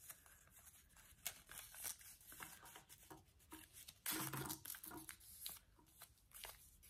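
Origami paper being folded and creased by hand: faint crinkling rustles and small crackles, with a louder rustle about four seconds in.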